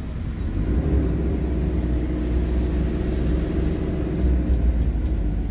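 Motorhome engine running with road noise while driving in city traffic: a steady low rumble with a faint engine hum over it, and a thin high whine for the first two seconds.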